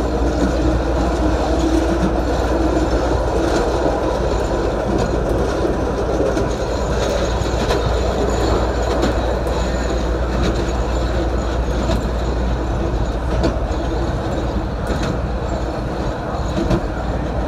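CTA Green Line 'L' train running at a steady speed along elevated steel track, heard from inside the car: a continuous rumble with scattered wheel clicks over the rail joints.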